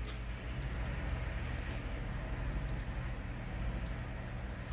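A handful of light computer mouse clicks, irregularly spaced, over a steady low electrical hum.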